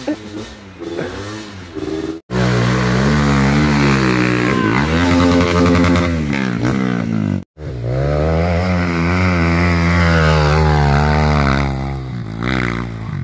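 Dirt bike engine revving hard, its pitch rising and falling over and over. The sound cuts out abruptly twice, about two and seven and a half seconds in.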